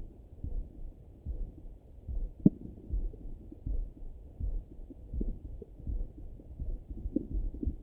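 Heartbeat pulse heard through a Littmann stethoscope on the belly: low, soft thumps at an even rhythm, with one brief squeak about two and a half seconds in.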